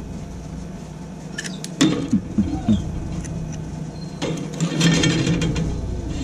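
Metal wire grill grates on a charcoal hibachi being lifted and shifted with metal tongs: clinks, knocks and scraping of metal on metal. There is a cluster of knocks about two seconds in and a longer rasping scrape a little before five seconds.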